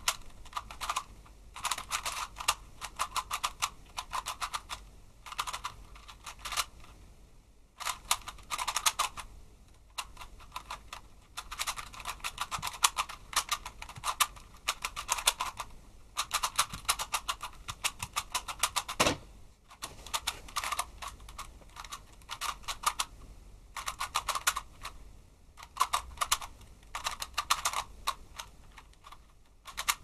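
A 3x3 puzzle cube being turned quickly during a solve: its plastic layers click and clack in rapid bursts of a second or two, with short pauses between the bursts. There is one duller knock about two-thirds of the way through.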